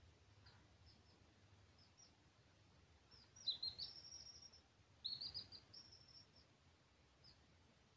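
Baby chicks peeping: two quick runs of high peeps, about three and a half seconds in and again about five seconds in, with a few faint single peeps between.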